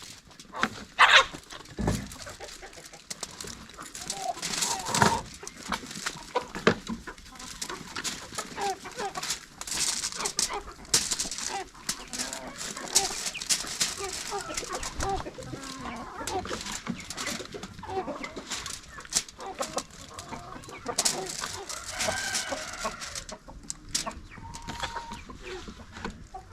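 Chickens clucking, many short calls throughout, with a few sharp knocks and handling noises mixed in.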